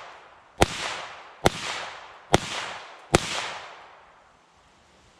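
Four shots from a 9mm AR-15-style pistol with a 7-inch barrel, fired at a steady pace of roughly one a second, each crack trailing off in an echo. The shooting stops about three seconds in.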